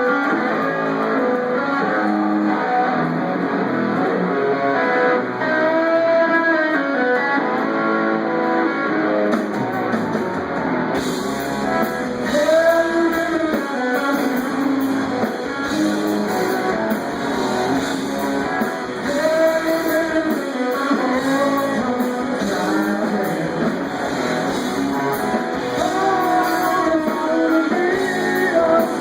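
Live rock band playing, with electric guitar to the fore. The sound gets fuller and brighter about eleven seconds in.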